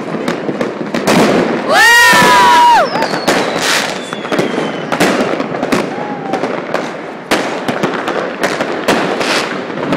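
Street fireworks and firecrackers going off all around, a dense run of sharp bangs and crackles. About two seconds in, a loud horn-like honk sounds for about a second, louder than the bangs.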